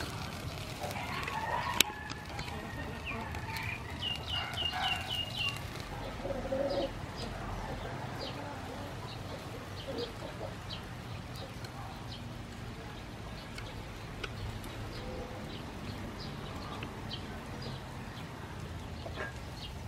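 Chickens clucking, with short scattered calls and a quick run of about six high notes around four seconds in. A single sharp click about two seconds in stands out as the loudest sound.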